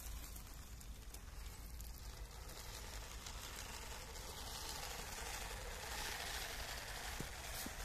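A 3D-printed RC truck running on an electric motor, its plastic gear drivetrain whirring faintly as it drives across leaf-strewn ground, a little louder about two-thirds through.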